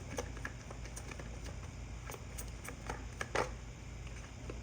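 Tarot cards being shuffled and handled, giving a scatter of irregular soft clicks and flicks.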